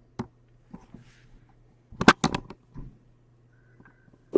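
A few sharp clicks and a quick cluster of loud knocks about two seconds in, over a steady low hum.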